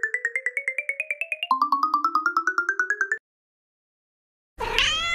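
A quick run of short musical notes, about ten a second, climbing steadily in pitch, starting over from the bottom once and cutting off about three seconds in. Near the end a cat meows once.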